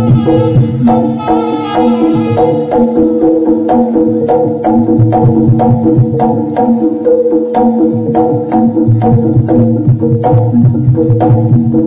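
Jaranan gamelan music led by Javanese kendang hand drums: quick, sharp slaps and deep booming strokes over a repeating melody of tuned gamelan metallophones and gongs.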